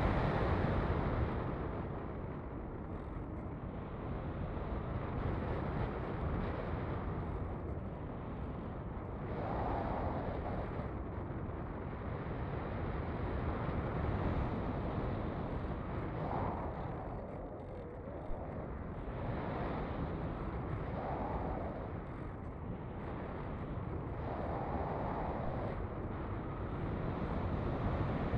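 Wind rushing over an onboard camera on a radio-controlled plane in flight: a steady rush that swells and eases several times.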